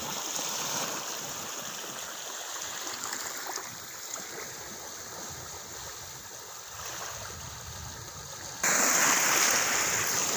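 Small sea waves washing and lapping on a sandy, pebbly shore. Near the end the surf turns suddenly louder and stays up.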